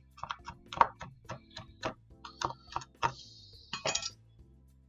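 Chef's knife chopping cooked bacon on a wooden cutting board: a quick, uneven run of knocks, then a short scrape and a last few knocks about three to four seconds in. Quiet background music plays underneath.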